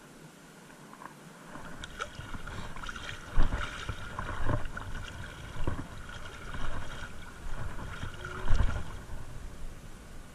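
Shallow sea water splashing and sloshing, with irregular heavy thuds, the loudest about three and a half and eight and a half seconds in.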